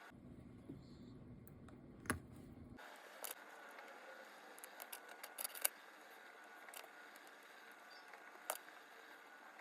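A few sharp, small clicks and taps over faint room tone, several close together about halfway through: metal watchmaker's tools touching the parts of an Omega cal.1012 movement as it is taken apart.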